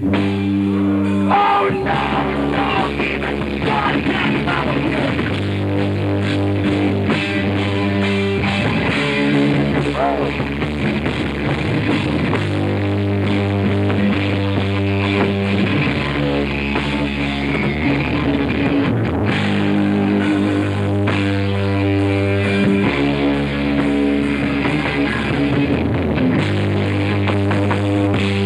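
Live rock band playing: distorted electric guitar and drum kit, with held chords that change every second or two.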